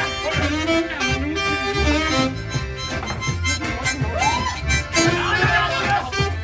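Band playing an instrumental passage: a melody line over a steady bass beat.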